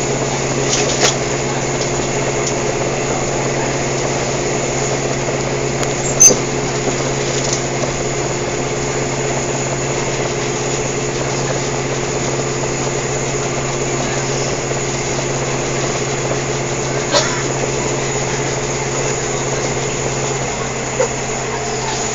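Steady drone of a Sprinter diesel railcar's engine and running gear heard from inside the passenger car while it runs along the line. A few short sharp clicks stand out, the loudest about six seconds in.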